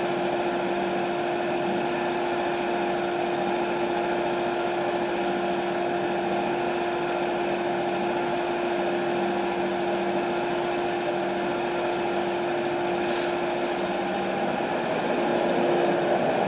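TimberKing 1220 band sawmill running at idle between cuts, a steady mechanical hum with a clear constant tone. It gets a little louder near the end.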